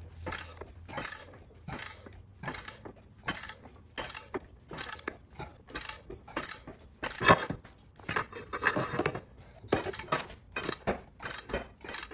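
A ratchet on a long pipe extension being worked back and forth to turn the center screw of a three-jaw gear puller, its metal clicking in a steady run of sharp clicks about two or three a second. The loudest clink comes about seven seconds in. The puller is drawing a seized auger mount off its shaft.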